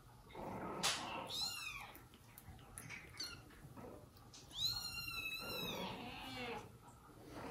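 Kitten mewing: a short high-pitched cry about a second and a half in, then a longer one in the middle, with soft scuffles in between.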